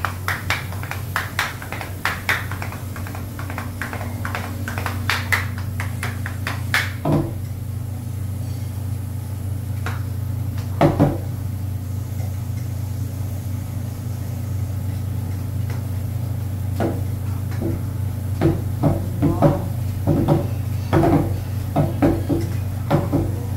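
A teppanyaki chef's salt and pepper shakers clacking and tapping in a show routine: a fast run of sharp clacks, a few more near the middle, and another run near the end. A steady low hum runs underneath.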